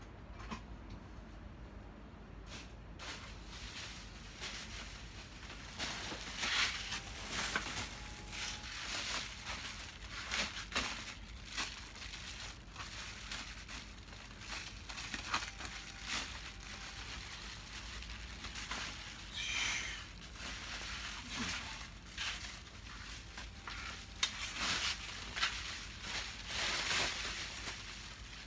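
A sheet of bubble wrap being handled, crinkling and rustling in irregular crackles.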